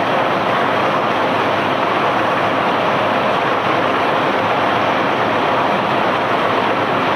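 Steady, even mechanical noise of a barge's unloading machinery running while it discharges cobblestones.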